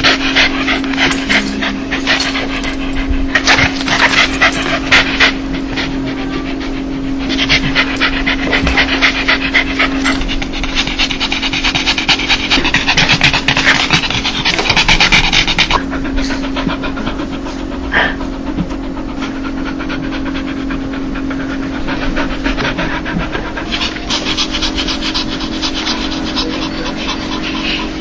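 A dog panting fast in quick breathy huffs, coming in bouts: the excited panting taken for a dog's happy 'laugh'. A steady low hum runs underneath.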